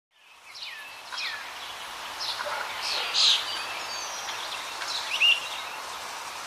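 Several birds chirping and calling over a steady hiss, fading in at the start.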